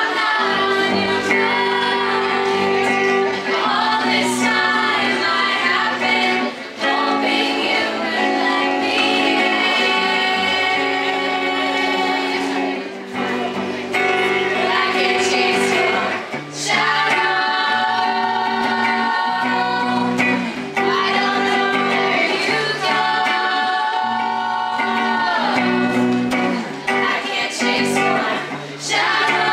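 A group of girls singing a song together in harmony, live, with an instrumental accompaniment holding steady low notes under the voices.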